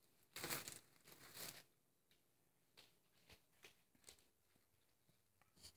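Mostly near silence, with two brief soft rustles about half a second and a second and a half in, then a few faint clicks.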